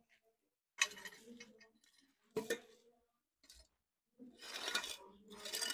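Metal exhaust pipe clinking and scraping as it is worked into position under a car, in a few separate bursts with a sharp knock about two and a half seconds in.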